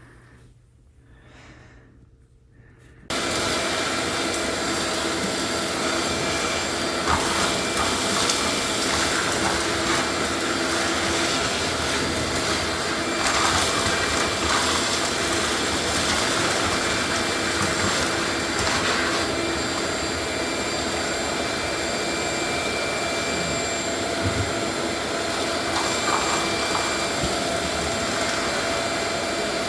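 Quiet room tone, then about three seconds in a loud, steady motor noise cuts in abruptly, with a fixed whine and occasional faint knocks, typical of a machine or power tool running during hardwood floor removal.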